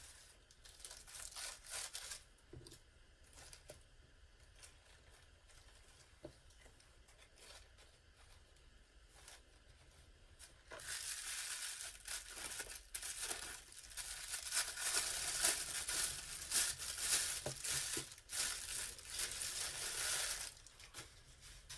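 Tissue paper crinkling and rustling as a wrapped item is opened, dense and loud for about ten seconds in the second half. Before it, brief rustles of a small plastic bag and light handling clicks.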